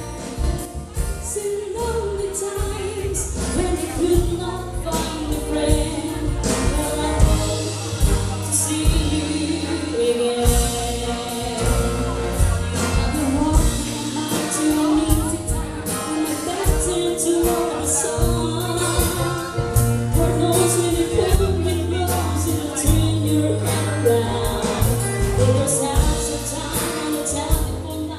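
Live band playing a slow soft-rock song, with a melodic vocal line over steady bass and drums.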